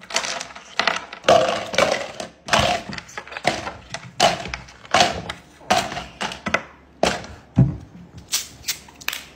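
Ice cubes dropped one at a time into a clear plastic cup, a hard clack with a short hollow ring about every half second, around fifteen in all.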